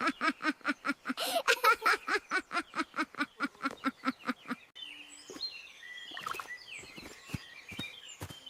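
A fast, even run of short pitched calls, about five a second, that stops abruptly about halfway through. Birds chirping follow.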